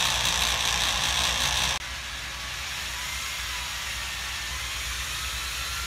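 Corded electric drill running steadily at speed, spinning lengths of wire clamped in its chuck to twist them together. It cuts off abruptly about two seconds in, leaving a quieter steady hiss.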